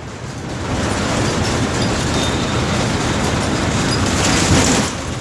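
Steady rumble and road noise of a moving bus, heard from inside with its door open; the noise swells about a second in.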